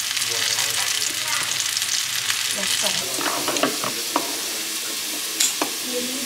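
Sliced mushrooms and meat sizzling in a hot wok with a steady hiss, stirred with a wooden spatula that scrapes and knocks against the pan. A couple of sharp taps come near the end.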